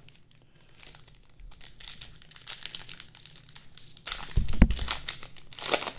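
Plastic trading-card pack wrapper crinkling as it is handled and torn open, with a low thump about four and a half seconds in.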